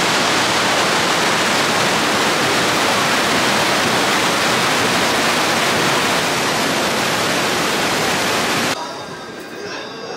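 Steady, loud rushing noise that cuts off suddenly about nine seconds in.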